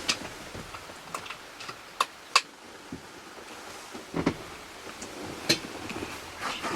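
A handful of short sharp clicks and taps, scattered irregularly over a quiet background, the loudest about two and a half seconds in.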